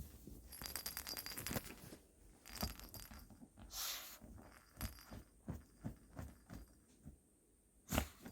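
A dog scrabbling with a toy on the floor: a quick run of clicks and scratches, a short scrape, scattered taps, and a sharp knock near the end.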